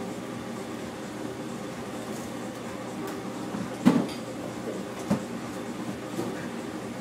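Steady kitchen background hum, with two sharp knocks about four and five seconds in, the first the louder: a hand and folded towel pressed and slapped down on a stainless-steel prep counter while it is wiped.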